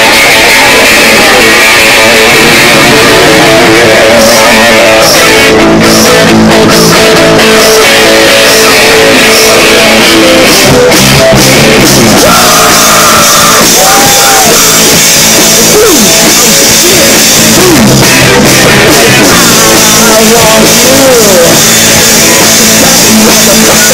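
Loud live rock-style music with guitar, drums and some singing, coming over PA speakers and recorded at full level.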